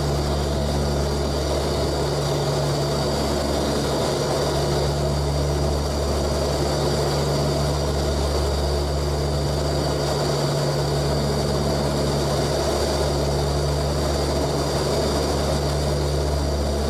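Four Ivchenko AI-20 turboprop engines of an Antonov An-12 running steadily in flight, heard from inside the cockpit as a constant, loud drone with a steady propeller hum.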